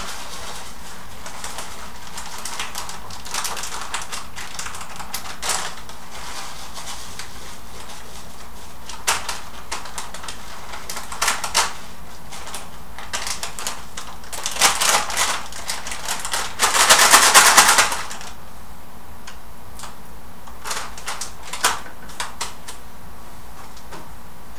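Scattered clicks and rustles of a plastic bag and kitchen dishes being handled during food preparation. One louder rustle of about a second comes a little past two-thirds of the way through.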